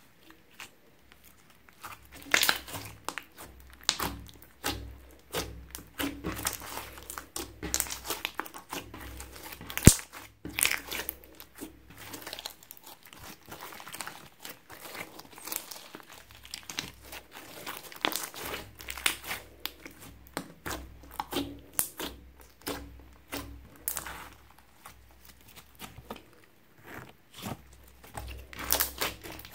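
Sticky glitter slime with plastic letter beads mixed in, being stretched, folded and pressed by hand: dense, irregular crackles and pops of trapped air, with one sharp louder pop about ten seconds in.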